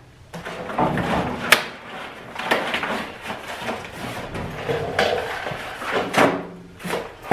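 Cardboard box being worked out of a sheet-steel cabinet, scraping and rustling against the metal with irregular bumps and a sharp knock about one and a half seconds in.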